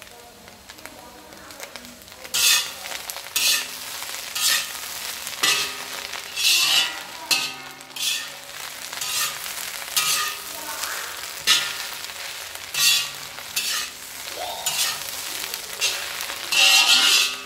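Food being stir-fried in a hot pan: a steady sizzle, broken from about two seconds in by loud sizzling bursts roughly once a second as the food is stirred and tossed.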